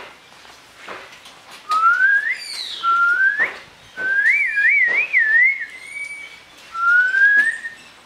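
Someone whistling: four phrases of slow upward glides, the third a wavering warble, with scattered light clicks and knocks in between.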